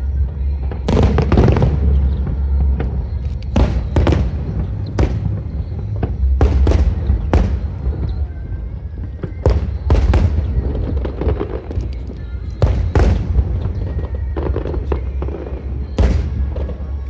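Fireworks display: aerial shells bursting in a string of sharp bangs, about a dozen spread unevenly, some in quick pairs, over a constant low rumble.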